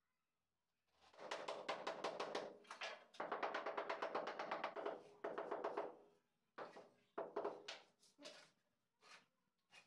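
Rapid runs of light knocks on a large ceramic floor tile just laid on a wet cement mortar bed, tapping it down to bed and level it. The fast runs go on for about five seconds and give way to a few single taps near the end.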